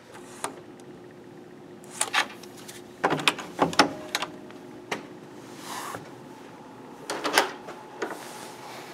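Hotel room door being unlocked with a key card and opened: a series of sharp clicks and clunks from the electronic card lock, lever handle and latch. The loudest are a quick cluster about three to four seconds in and another about seven seconds in.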